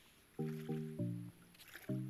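Background music: a simple melody of short notes, three in quick succession about half a second in, then a pause.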